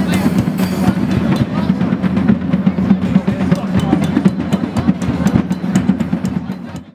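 Drums and percussion played in a dense, fast rhythm, cutting off abruptly near the end.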